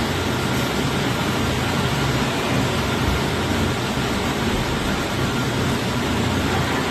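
Steady, even hiss-like noise with a faint low hum underneath, unchanging throughout, with no distinct events.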